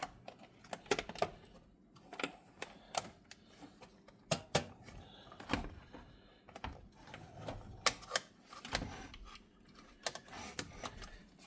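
Irregular light clicks and knocks of a replacement electric range burner switch, with its wires plugged in, being handled and set back into place.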